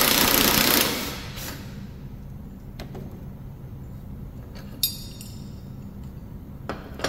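Cordless impact wrench hammering for about a second on the nut of a riding-mower deck spindle pulley, then cutting off. A few light metallic clicks and a knock follow as the loosened parts are handled.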